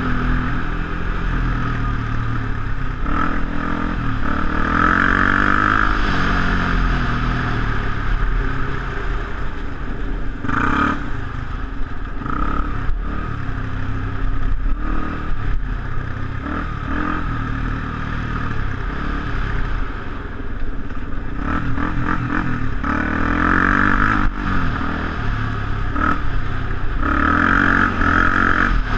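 Quad bike engine running over a rough gravel track, its pitch rising and falling repeatedly as the throttle opens and closes, with clatter from the bumps.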